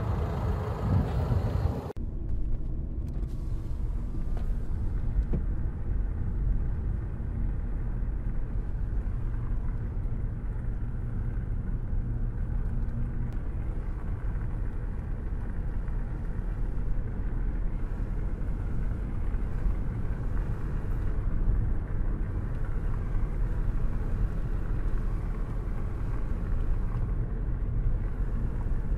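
A steady low rumble of a car heard from inside its cabin. It follows a brief brighter hiss that cuts off suddenly about two seconds in.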